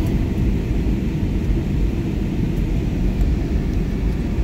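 Steady low rumble of jet engines and rushing air inside an airliner cabin in flight, heard from a window seat over the wing.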